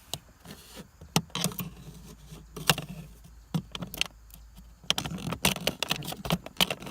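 Scattered sharp clicks and scraping of a tool prying at a plastic retaining tab on a Mazda 5 dashboard air vent housing; the clicking comes thicker and faster from about five seconds in.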